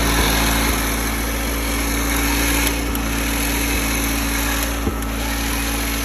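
Electric winch on a Jeep's front bumper running steadily as its cable is paid out, a loud continuous motor-and-gear whine with a hiss.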